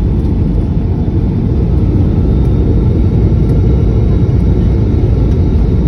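Cabin noise of a Boeing 717-200 rolling out on the runway just after touchdown, ground spoilers raised: a loud, steady, low rumble of the landing roll.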